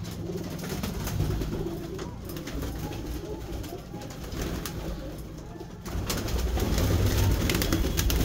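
Satinette fancy pigeons cooing, with wings flapping and clattering as birds flutter up while being caught. The flapping gets louder from about six seconds in.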